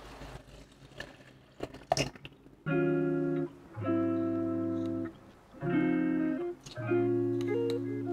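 Lofi jazz background music: plucked guitar chords held in repeating blocks, entering about two and a half seconds in after a quieter start with a few sharp clicks.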